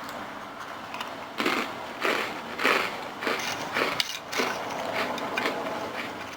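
A person chewing crunchy food close to the microphone: a string of crisp crunches, a little under two a second, from about one to five seconds in.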